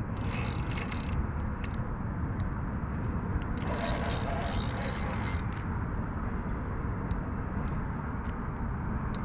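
Spinning reel being worked, with scraping and clicks now and then, while playing a hooked fish on a bent rod, over a steady outdoor background rush.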